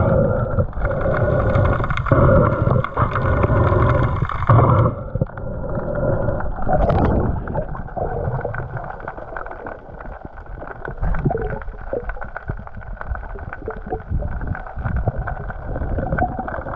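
Water noise picked up by an underwater camera housing on a speargun: brighter sloshing and splashing while it is just under the surface, turning muffled and dull about five seconds in as it goes deeper, with scattered small clicks.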